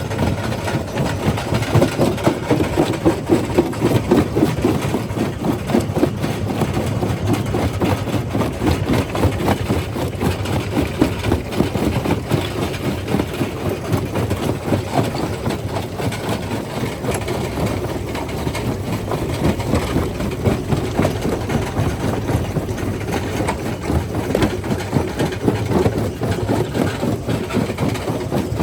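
Quarry primary jaw crusher running and crushing rock: a continuous heavy mechanical rumble with frequent irregular knocks and cracks of stone.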